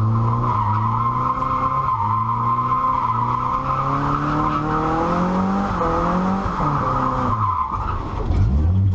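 Nissan 240SX S14 drift car sliding: tyres squealing steadily while the engine is held in the revs, its pitch rising and falling. Near the end the squeal stops, the revs drop, and then they climb again.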